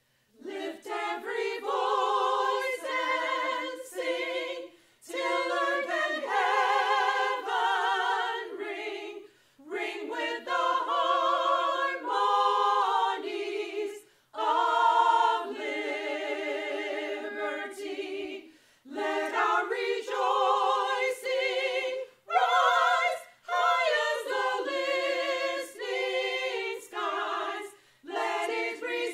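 Small mixed choir of women's and men's voices singing a cappella, in sung phrases broken by short pauses about every four to five seconds.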